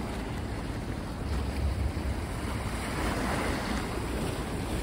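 Small sea waves washing against the rocks of a seawall, with wind buffeting the microphone. A wave surges up a little after three seconds in.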